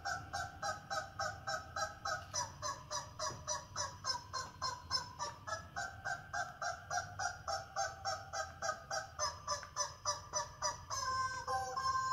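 A dog whining in a steady run of short, nasal whimpers, about four a second, keeping up without a break: the excited whining of a dog fixed on something it wants.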